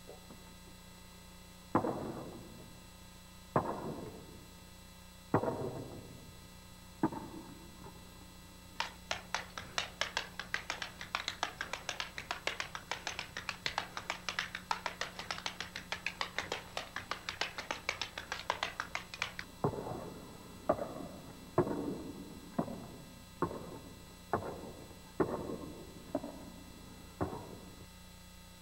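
Metal-plated tap shoes striking a wooden stage floor in a paddle-and-heel tap step. It opens with four single heavy strikes about two seconds apart, then a fast, even run of taps lasting about ten seconds, then a slower, uneven string of louder strikes.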